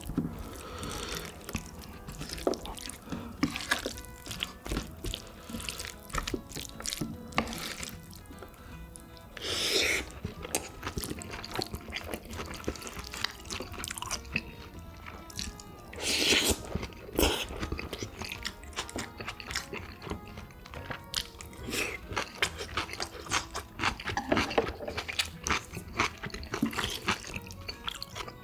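Close-up wet eating sounds: food being mixed and eaten, with frequent small clicks of utensils and two longer, louder wet sounds about ten and sixteen seconds in, over quiet background music.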